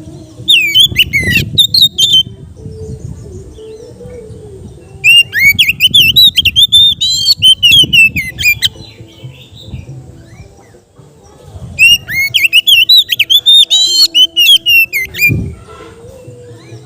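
Oriental magpie-robin (kacer) singing in three loud bursts of fast, varied whistled phrases, each about two to three seconds long. A low background hum and rumble sits underneath.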